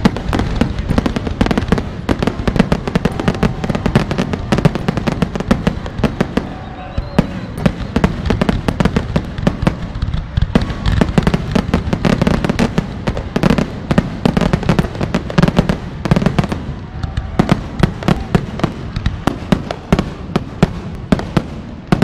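Aerial fireworks display with shells bursting in quick succession: many sharp bangs and crackles each second, without a break, over a low rumble.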